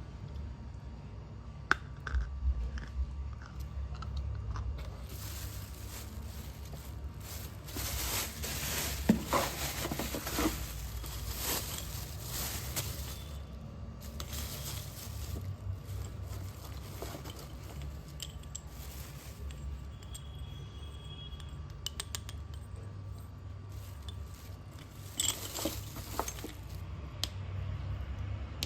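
Slate pencils being bitten and chewed: dry, brittle crunching. It comes in a long run through the middle and a shorter run near the end, with quieter gaps between.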